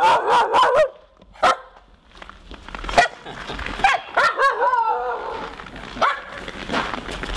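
A dog whining in high, wavering cries, once at the start and again about four seconds in, with a few sharp clicks between.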